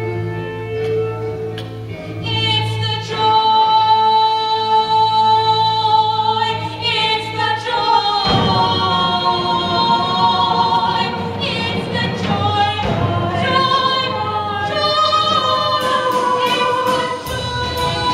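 A stage-musical ensemble sings in chorus over instrumental accompaniment. Long held notes come first, and the sound turns fuller with many voices about eight seconds in.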